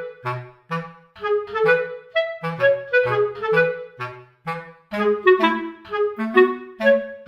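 Background music: a light instrumental tune of short, separate melody notes over a bass line, at a steady bouncy pace.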